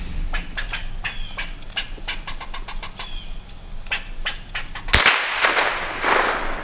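A single shot from a Ruger 10/22 .22 rifle about five seconds in, with an echo trailing off over a second and a half, after a run of faint clicks. The shot hits and kills the squirrel.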